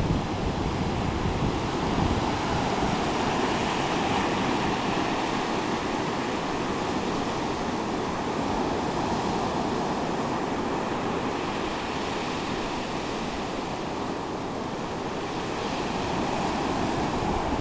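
Ocean surf washing onto the shore, a steady rushing wash that swells and eases slowly, with low wind rumble on the microphone.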